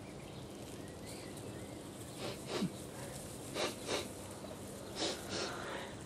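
A handful of short sniffs, as of someone sniffing the air to follow a scent, over a faint steady background hiss.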